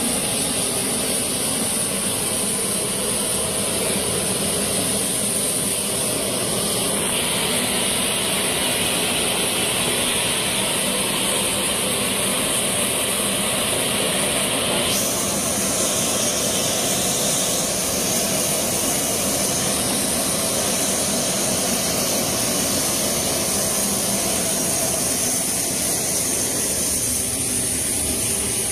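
Steady jet-turbine noise from the military transport aircraft, a continuous rushing sound with a high whine over it, shifting abruptly twice.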